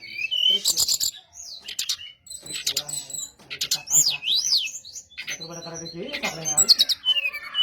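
Brown-chested jungle flycatcher singing a rapid, varied song of high sweeping and zigzagging whistles mixed with sharp clicks. About five seconds in, a run of lower, wavering warbled notes joins in.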